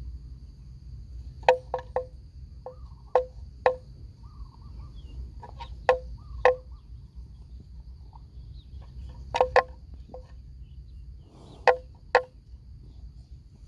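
A dozen or so sharp, hollow knocks with a clear pitch, like wood striking wood, many coming in pairs about half a second apart. They play over a steady high insect drone and a low rumble.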